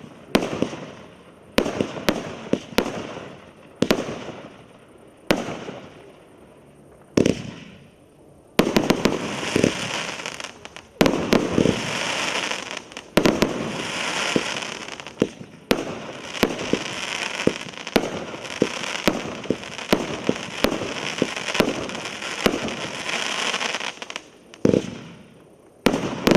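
A multi-shot consumer fireworks cake, MC119 'Pago Pago', firing. Single bangs come about once a second at first. About a third of the way in they turn into a dense, near-continuous run of rapid bangs, which thins to a few last shots near the end.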